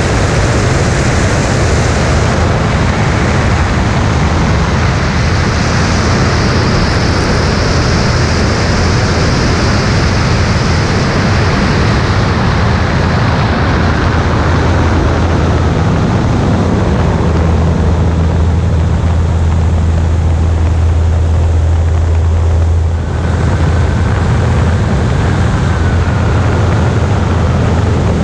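Light single-engine high-wing airplane in flight, its engine and propeller drone under heavy wind rushing over a microphone mounted outside on the wing strut. Partway through the wind noise eases and the steady low engine drone comes forward, with one brief dip in level near the end.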